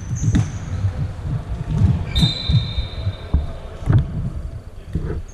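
Futsal ball being kicked and bouncing on an indoor hall floor: a run of irregular dull thumps, echoing in the hall, with a high squeak about two seconds in.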